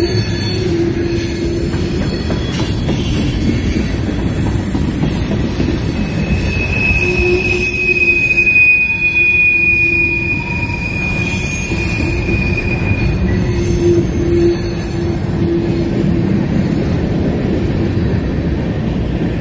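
Freight train cars rolling past on steel rails with a steady rumble, and wheels squealing: a high-pitched squeal comes in about six seconds in and fades out about seven seconds later.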